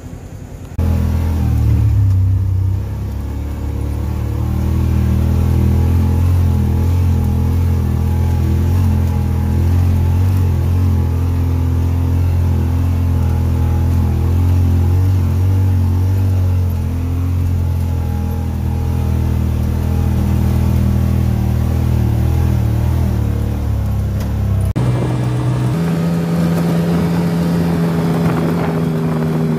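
Side-by-side UTV engine running at a steady pace while driving a rough dirt trail, heard from the seat. Near the end, after a cut, it runs steadily at a higher pitch.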